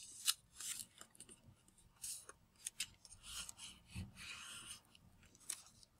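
Faint rustling and crinkling of a sheet of origami paper as fingers fold and press a flap, in short scattered rustles with a few soft clicks.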